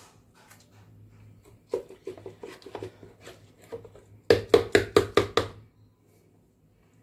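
Whole lemons being pushed and packed into a glass jar by hand, knocking against the glass and each other. First a scatter of light clicks, then a quick run of sharp knocks a little past the middle.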